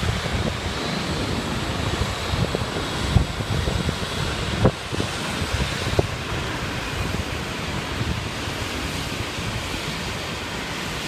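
Distant helicopter running on the ground, a steady rushing noise with a faint high turbine whine, mixed with wind buffeting the microphone. A few dull thumps come in the first half.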